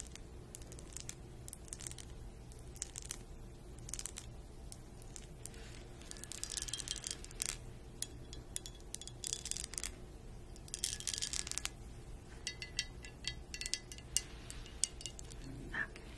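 Long fingernails tapping and scratching on a cut-glass decanter and its glass stopper: sharp clinks that ring briefly, rough scratchy passes lasting about a second, and a run of quick taps near the end.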